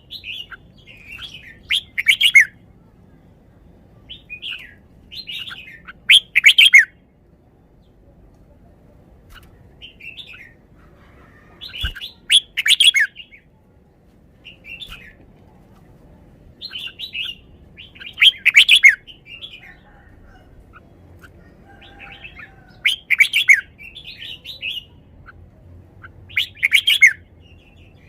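Red-whiskered bulbul singing: six loud, short warbled phrases, one every four to six seconds, with softer chirps between them.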